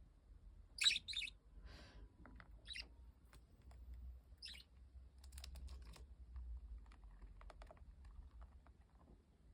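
Budgie giving a few short high chirps, the loudest two close together about a second in, among light scattered tapping and clicking like a beak pecking at something hard.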